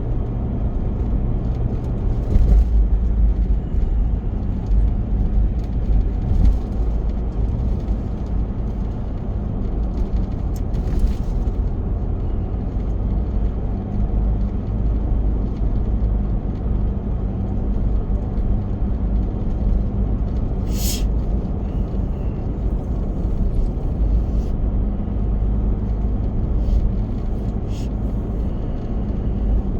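Steady low road and engine rumble inside a moving car's cabin, with a few faint ticks and one sharper click about two-thirds of the way through.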